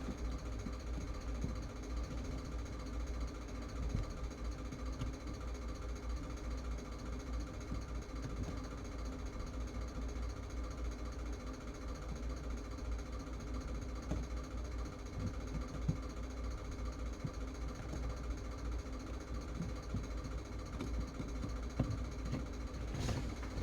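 Steady low mechanical hum with several steady tones over it and a rough, rattling low end, broken by faint scattered clicks.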